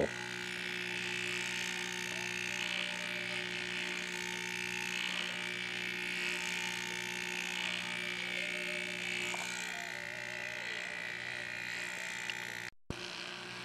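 Fog machine's small electric fluid pump running with a steady hum, straining but moving too little fog juice: not enough flow. The sound breaks off briefly near the end.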